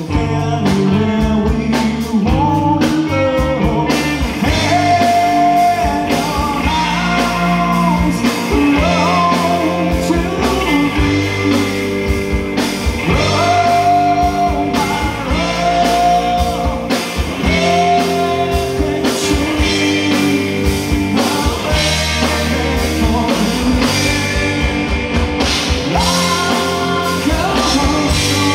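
Live rock band playing loudly through a PA: a singer holding long notes over electric guitars and drums.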